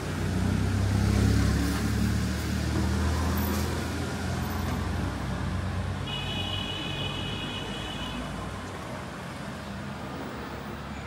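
Street traffic: a motor vehicle's engine passes close, loudest about a second in, then fades into the general road noise. A high steady tone sounds for about two seconds past the middle.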